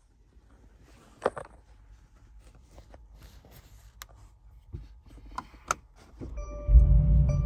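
A few sharp clicks, then about six seconds in the Mercedes-AMG G63's 4.0 L twin-turbo V8 starts. It catches with a brief rise in revs and settles into a steady idle, heard from inside the cabin.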